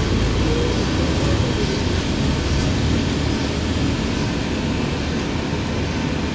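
Cabin noise of a 2020 Gillig BRT 40-foot transit bus under way: steady engine and road rumble, with a faint whine rising in pitch in the first second or so as the bus picks up speed.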